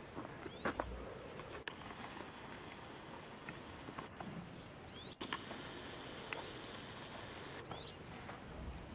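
Quiet rural outdoor ambience: a steady hiss with short bird chirps now and then. A few sharp clicks are scattered through it.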